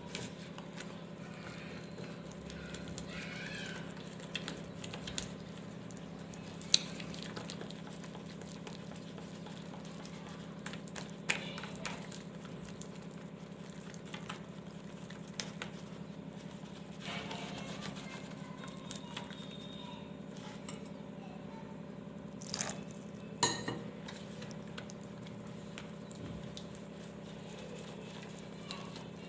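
Spatula stirring thick chocolate cake batter in a plastic mixing bowl: soft, wet scraping with a few sharper knocks of the spatula against the bowl, the loudest about seven seconds in and two more close together later on. A steady low hum runs beneath.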